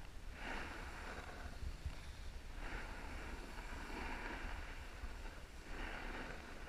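Wind rushing over the microphone with a steady low rumble while riding down packed snow. A hissing scrape of edges carving across the snow swells three times, roughly every two to three seconds, once with each turn.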